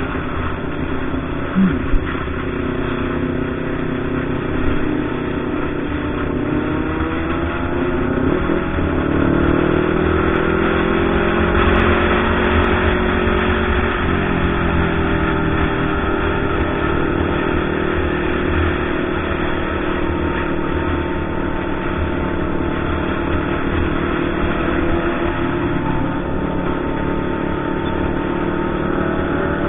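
Kawasaki Ninja ZX-25R's 249 cc inline-four engine running on the road. Its pitch climbs about a quarter of the way in as it picks up revs, then holds fairly steady with small rises and dips.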